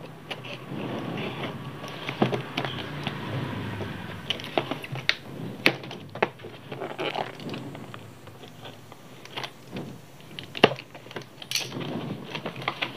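A cardboard speaker box being handled and opened: rustling and scraping of the packaging as a utility knife cuts it open and the sleeve is slid off, with scattered sharp clicks and taps.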